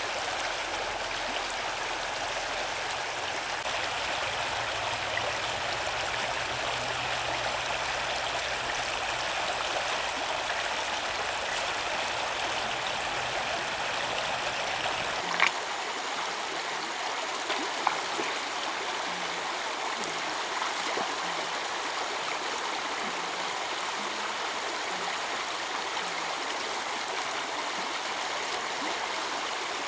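Shallow, rocky stream flowing steadily over stones, a continuous rushing and rippling of water. About halfway through there is a single sharp knock, and a smaller one follows a couple of seconds later.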